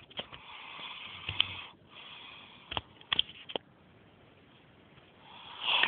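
Snoring in sleep: a long raspy breath that stops abruptly, a shorter breath, then a quiet spell before a louder breath swells near the end. A few sharp clicks fall in between.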